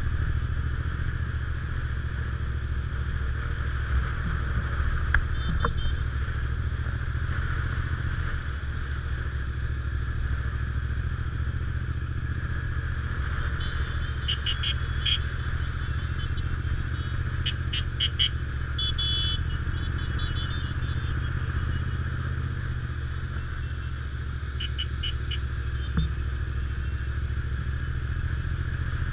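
Motorcycle engine running steadily at cruising speed, heard from on the bike itself. A few brief high-pitched chirps come through about halfway in and again near the end.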